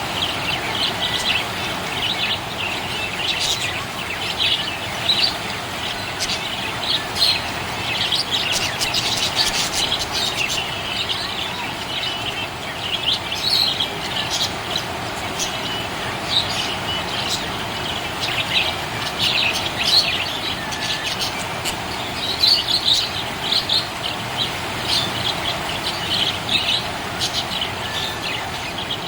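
Budgerigar chirping and warbling in quick, continuous twittering, over a steady background hiss.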